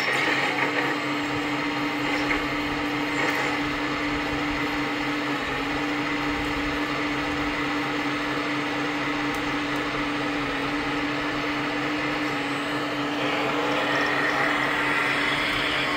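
Hydraulic pump of a 1/14-scale RC Volvo excavator running with a steady hum and whine while the boom lifts and swings. A higher whine rises near the end.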